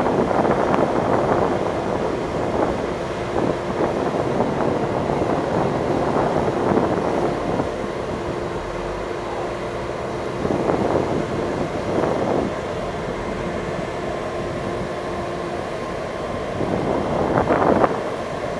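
Ferry under way: a steady rumble of the boat's engine and wash, with a faint steady hum through the middle and wind buffeting the microphone.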